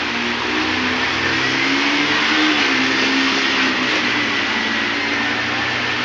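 Motorcycle engines running and revving, their pitch rising and falling as the bikes push through deep floodwater, over a steady rushing hiss of water.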